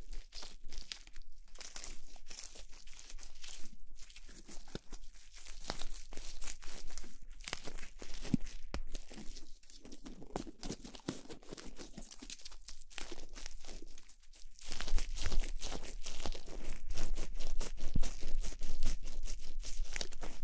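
Close-miked crinkling, crackling and crunching of something being handled, a dense run of small crackles that gets louder about three-quarters of the way through.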